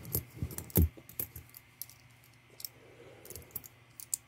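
Copper Lincoln wheat pennies clicking as they are picked up, shuffled and set down one by one: a quick run of sharp little clicks, the loudest a little under a second in, then a few scattered single clicks.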